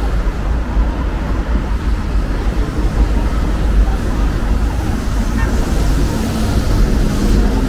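Busy city street ambience: a steady rumble of road traffic from passing cars and buses, with voices of passersby.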